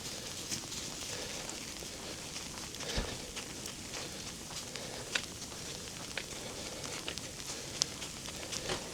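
Walking through snow: a steady hiss with scattered soft crunches and a handful of sharp clicks.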